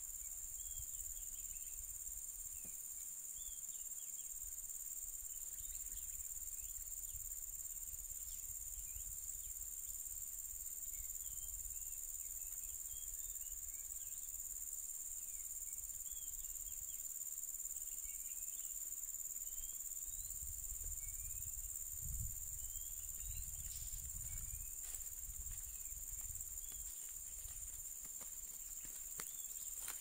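Steady high-pitched chorus of insects, with short faint chirps scattered over it. A low rumble comes in for a few seconds about twenty seconds in.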